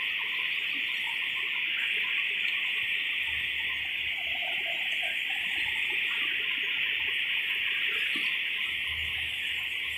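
Steady, high-pitched insect drone that holds without a break.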